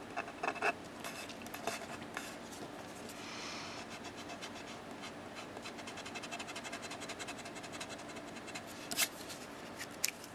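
Pen-style stick eraser rubbing back and forth on card stock, in quick short strokes, lifting off dried liquid masking fluid. Two sharp clicks near the end.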